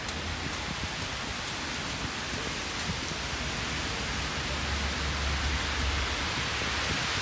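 Steady hiss of rain and wet snow falling on wet pavement, slowly getting louder, with a low rumble swelling about two-thirds of the way through.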